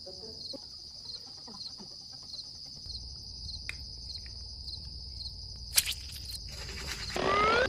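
Crickets chirring steadily in a high, continuous band. A sharp click comes about six seconds in, and a short, louder squeak rising in pitch comes near the end.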